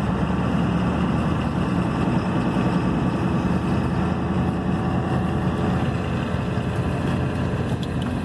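Truck's engine and road noise heard from inside the cab while driving, a steady low rumble.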